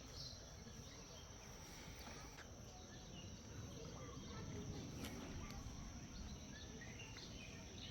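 Faint outdoor ambience with scattered bird chirps and insects, and a single brief click about five seconds in.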